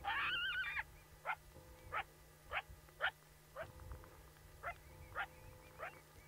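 Coyote calling: a short wavering whine, then a string of about eight short, rising yips or barks, spaced irregularly.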